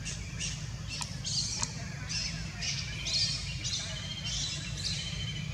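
Short, high-pitched chirping calls repeating about twice a second over a steady low hum.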